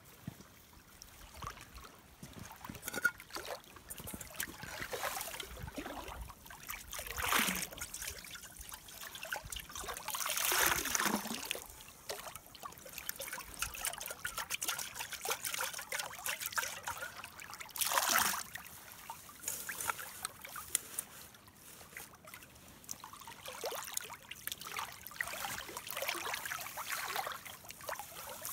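Lake water sloshing and trickling in a small metal cooking pot as it is dipped into the shallows, filled and rinsed out, scrubbed with a handful of willow tips. Several louder pours and splashes stand out, the strongest about 10 and 18 seconds in.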